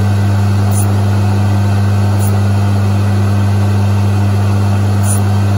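Brierley drill grinder's electric motor running with a steady hum while its grinding wheel touches the point of a small twist drill, taking a little more off the cutting face. A short high hiss comes about every second and a half.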